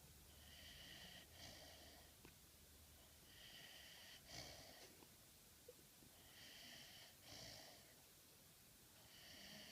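A dog snoring faintly, with a whistling breath about every three seconds. Each breath lasts a little over a second, and there are four in all, the last starting near the end.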